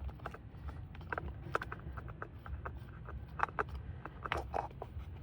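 Spin-on engine oil filter being unscrewed by hand from a mini excavator's diesel engine: irregular small clicks, taps and scrapes of hands and metal, after the filter has been broken loose with an oil wrench.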